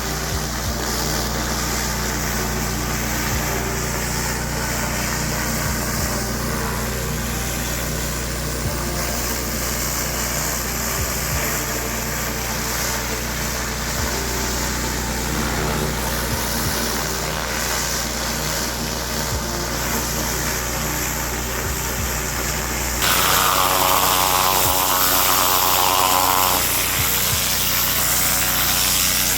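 Pressure washer engine running steadily. About 23 seconds in, a louder hiss of spray joins it.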